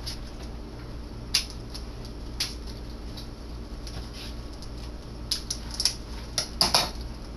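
Stiff plastic retail packaging being handled and pried at while someone tries to open it: scattered sharp clicks and crackles, coming thicker and louder in the last couple of seconds, over a steady low hum.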